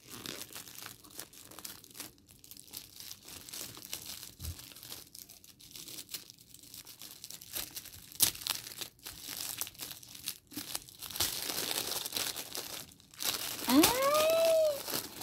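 Gift wrapping paper being crinkled and torn open by hand: scattered rustles and crackles, thickening into a longer, louder stretch of crinkling about eleven seconds in.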